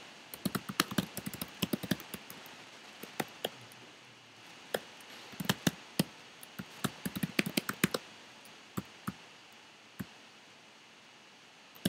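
Typing on a computer keyboard: quick runs of key clicks with short pauses between them, stopping about ten seconds in.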